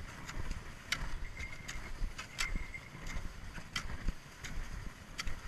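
Cross-country skis sliding over spring snow, with a sharp click about once a second as each ski pole is planted, over a steady rushing of the glide and wind on the microphone.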